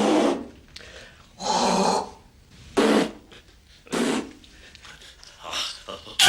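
A man's short gasps and grunts, about five of them spaced a second or so apart, with quiet in between.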